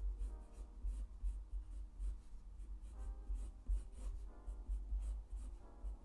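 Graphite pencil scratching across paper in quick, short repeated strokes, sketching small overlapping feather curves.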